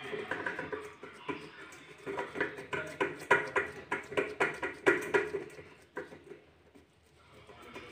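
Hands patting and rolling a soft semolina-and-potato dough log on a steel plate: a run of irregular soft pats and taps that thins out and stops about six seconds in.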